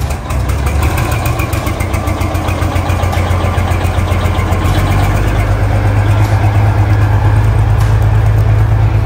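Semi tractor's diesel engine running at low revs with a deep, steady, pulsing rumble as the truck rolls slowly out, getting a little louder toward the end.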